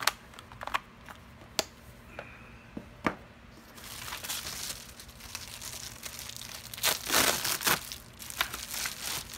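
Plastic packaging crinkling and tearing as a package is opened, loudest about two thirds of the way through. Before it, a few sharp clicks and taps of small items being handled.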